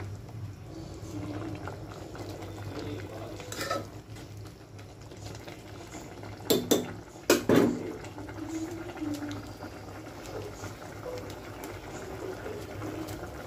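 Vermicelli in a tomato masala sauce boiling and bubbling in a metal pot as a ladle stirs it; the ladle knocks against the pot once a few seconds in and four times in quick succession around the middle, the loudest sounds.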